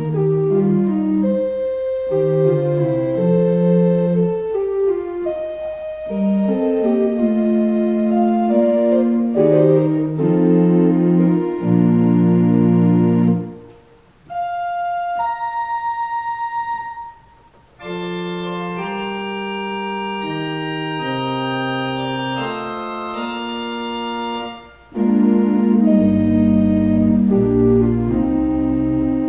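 Organ playing slow, reflective music in held chords, with two brief breaks about halfway through and low bass notes joining near the end.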